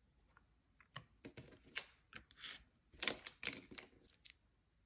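Small clicks, taps and short scrapes of nail-stamping tools working a metal stamping plate: white polish being worked on the plate and picked up with a silicone stamper. A run of them, busiest about three seconds in.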